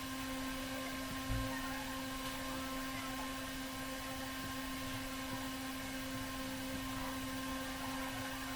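A steady electrical hum with a few overtones, and one soft low thump just over a second in.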